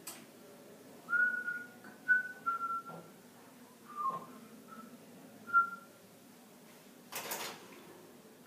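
A person whistling a short tune: about seven clear notes, some sliding in pitch, over roughly five seconds. Near the end there is a brief burst of hissing noise.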